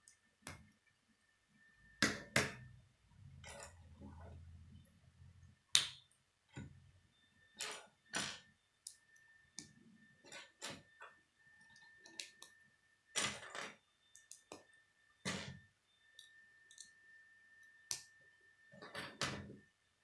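Plastic K'nex rods and connectors clicking and snapping together by hand, with pieces knocking on a wooden table. The clicks are irregular, spaced about a second or two apart.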